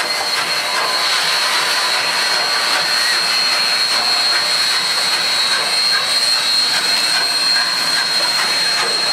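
Union Pacific 844, a 4-8-4 steam locomotive, moving past close by: a loud, steady hiss of steam with no distinct exhaust beats.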